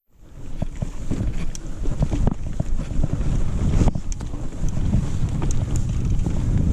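Wind buffeting a chest-mounted action camera's microphone as a 2018 Giant Reign 2 mountain bike rides a rocky trail: a steady low rumble with scattered clicks and knocks from the bike rattling over the ground.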